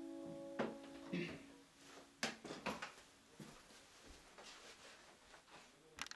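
The last chord of an upright piano rings and is cut off by the dampers about half a second in. Then come scattered knocks and footsteps as the player gets up from the piano bench and walks away, with a sharp click near the end.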